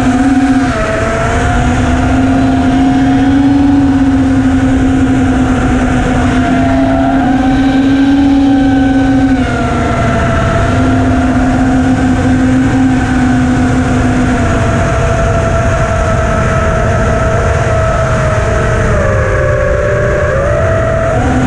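FPV racing quadcopter's brushless motors and propellers whining in flight, the pitch wandering up and down with the throttle, over wind rush on the onboard camera's microphone. Near the end the pitch dips and then climbs sharply.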